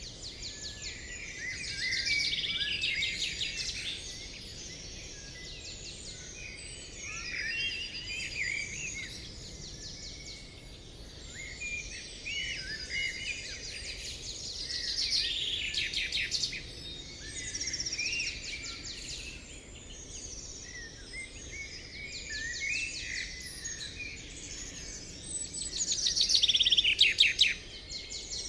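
Several birds chirping and singing, with repeated fast trills; the loudest trill comes near the end.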